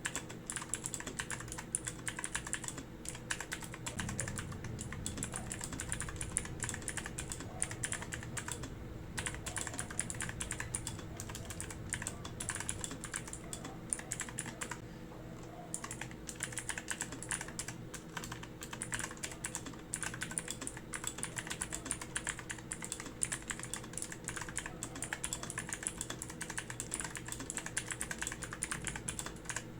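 Continuous typing on a Zifriend ZA94 mechanical keyboard with Otemu Blue switches: a dense stream of sharp, clicky keystrokes, with brief lulls about 9 and 15 seconds in.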